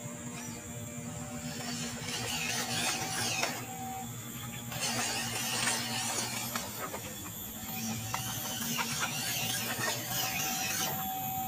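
WPL D12 RC pickup truck's small electric motor and gearbox whirring in three bursts with a fast clicking, as the loaded truck crawls over dry leaves and twigs.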